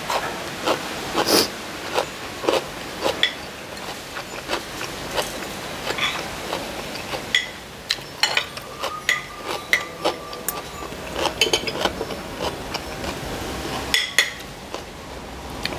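Metal spoon and fork clinking and scraping against a ceramic plate in irregular taps, some with a brief ring.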